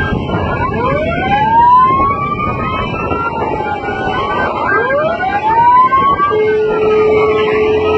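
Several sirens wailing over one another in rising sweeps, with a steady single-pitched tone joining about six seconds in, over a dense background rumble.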